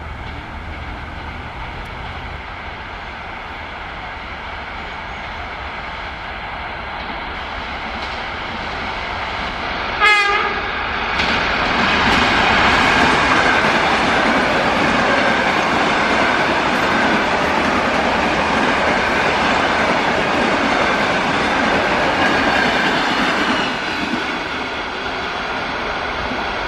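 ЭП2Д electric multiple unit approaching and passing at speed: rail and wheel noise builds, a brief horn blast sounds about ten seconds in, then the train runs by loudly for about twelve seconds before the noise drops.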